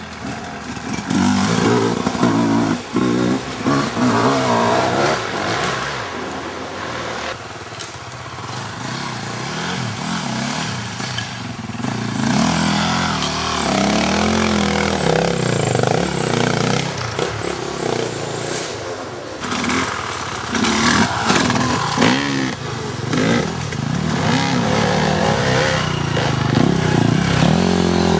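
Off-road motorcycles revving hard on a steep dirt climb, the engine pitch rising and falling again and again as the riders work the throttle.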